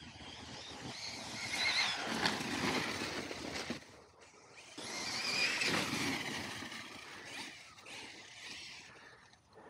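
Arrma Mojave 6S RC truck driving fast over grass on 6S power: a high brushless-motor whine rising and falling over tyre and drivetrain noise, in two surges with a brief dip about four seconds in.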